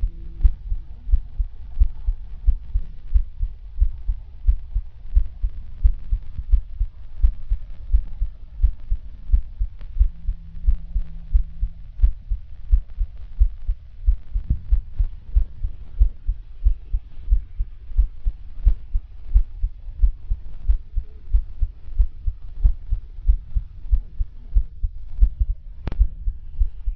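Human heartbeat picked up by a digital stethoscope's chest piece pressed to the chest and amplified: steady, regular low thumps, with one sharper knock near the end.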